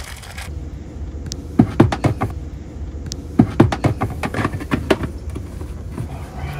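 A rubber dash insert mat knocks and taps against the plastic dash tray of an ICON golf cart as it is set in and pressed into place. The sharp knocks come in two clusters, one about a second and a half in and another from about three and a half seconds.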